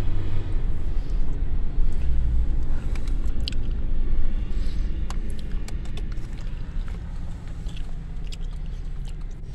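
Car cabin noise from a moving car: a steady low rumble of engine and road. A few sharp clicks and taps come through the middle few seconds.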